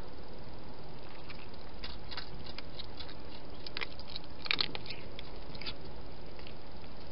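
A cat crunching and chewing food with a run of crisp bites that starts about two seconds in, is loudest past the middle and stops as the cat lifts its head, over a steady hiss.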